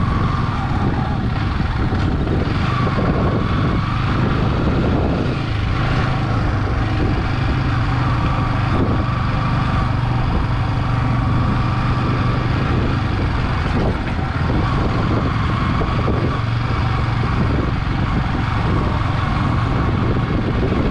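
Sport motorcycle's engine running with a steady note while it is ridden along a street, heard from the rider's seat along with road and wind noise.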